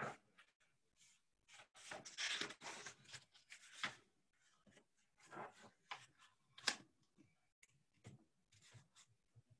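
Paper rustling and rubbing as a picture book is handled close to the microphone, in uneven scrapes with a sharp click about two-thirds of the way through.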